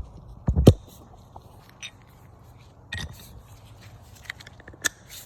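Hand tools being handled in a tool box drawer: a few loud clunks about half a second in, then scattered lighter clicks and knocks.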